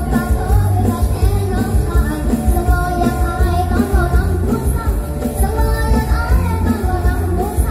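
Live mor lam band playing loud through a concert PA, with a heavy steady bass beat under a sung melody.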